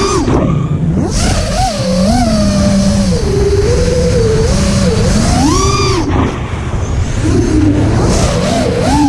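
FPV racing quadcopter's brushless motors and propellers whining, the pitch swooping up and down as the throttle is punched and cut through flips and turns, over a steady low rush of wind and prop wash. The whine drops away briefly about six seconds in before climbing again.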